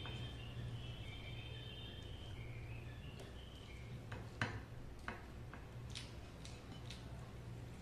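Birds chirping in the background for the first few seconds, then scattered soft clicks and taps of eating by hand: fingers working rice and fish curry on a ceramic plate, with one sharper click about four and a half seconds in. A low steady hum runs underneath.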